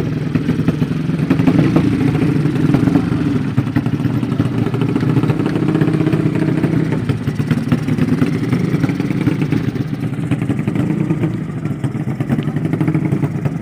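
Motorcycle engine running steadily, with no clear rise or fall in pitch.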